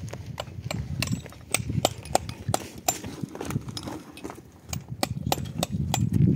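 Rapid, irregular sharp taps and knocks, a few a second, over a low rumble.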